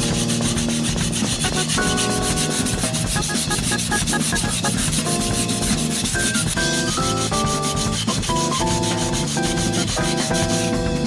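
Gyuto kitchen-knife blade being ground on a whetstone, a steady abrasive rubbing as the over-thick blade is thinned down. Background music plays over it, with a melody of held notes and a fast, even beat.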